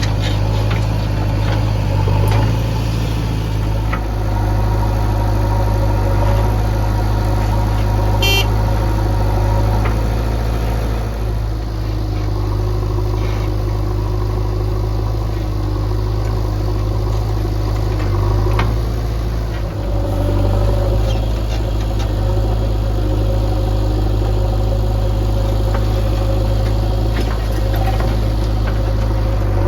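Diesel engine of heavy machinery running steadily at low, even revs with a deep hum.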